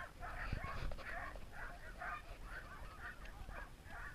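A team of harnessed sled dogs yipping and whining together: many short, high calls overlapping without a break, the excited noise of sled dogs held at a stop and eager to run.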